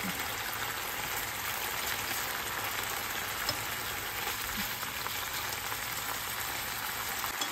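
Chicken pieces frying in a pan with garlic and soy sauce, sizzling steadily.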